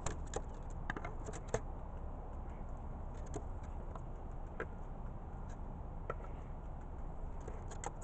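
Crows foraging for peanuts right by the camera: irregular light clicks and taps, a quick cluster in the first second and a half and another near the end, over a low steady rumble.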